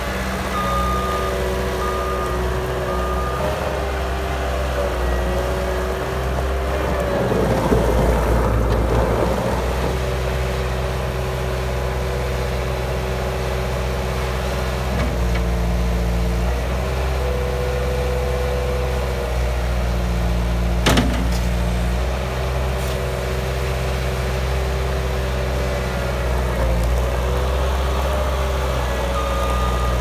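Bobcat 863 skid steer's diesel engine running steadily as the machine drives and works its loader arms, its pitch shifting as the hydraulics take load. A beeping backup alarm sounds about once a second for the first few seconds and again near the end. There is a rougher, noisier stretch around eight seconds in and a single sharp clank about twenty-one seconds in.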